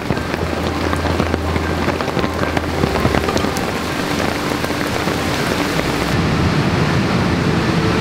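Heavy rain falling steadily, a dense hiss of countless drops pattering on wet ground and puddles.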